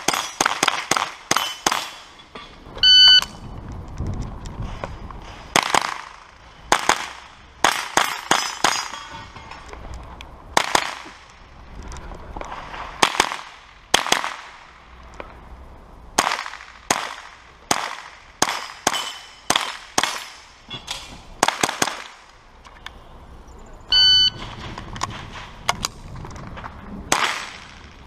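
Sig Sauer 522 SWAT semi-automatic .22 LR rifle firing quick strings of sharp shots, often a few a second, with short pauses between strings. Twice, about 3 s in and again near the end, a brief loud ringing tone sounds over the shooting.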